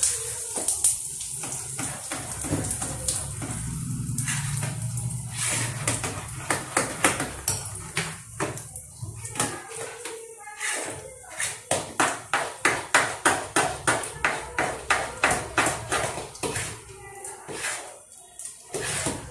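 Metal spoon clinking against a metal bowl while boiled colocasia leaves and gram flour are beaten smooth, a rapid run of strokes about two or three a second in the second half.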